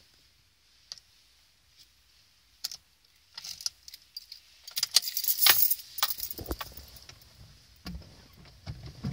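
Car keys jangling and clicking as the ignition key is put in and turned, followed by a few low knocks near the end.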